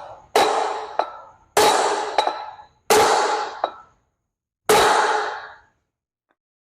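Hammer tapping a U-joint bearing cap into the yoke: four sharp metallic blows a second or more apart, each ringing out for about a second, with a faint tap at the start.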